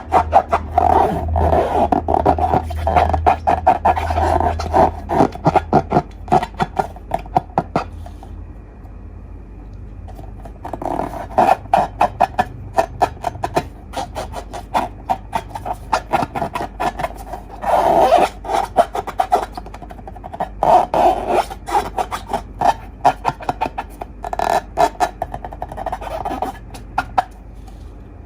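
Slime being squeezed and worked by hand, making rapid sticky clicks and crackles in bursts, with quieter pauses around eight seconds in and again in the middle.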